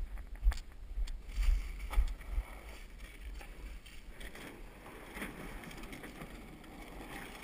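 Rumble and bumps of wind and handling on an action camera's microphone, loudest and most irregular in the first two and a half seconds, with a few faint crunches on beach shingle later on.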